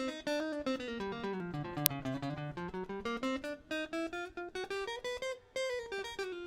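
Electric guitar played through a Zoom G1X ON multi-effects pedal on a clean, dry patch: a quick run of single picked notes, the melody sinking and then rising again.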